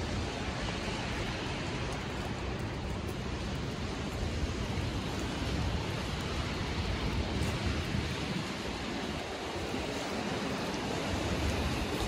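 Steady rushing wind with a low rumble underneath, even throughout with no distinct gusts or claps.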